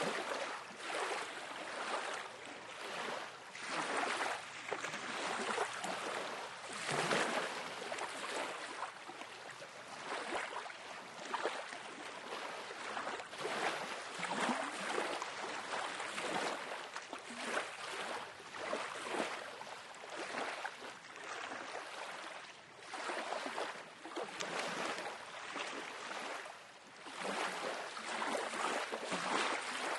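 Small waves lapping and washing up on a lake shoreline, in irregular swells every second or two.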